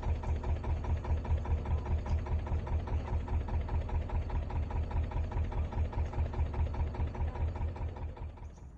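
Narrowboat's diesel engine idling with a steady pulse of about five beats a second. It fades out just before the end.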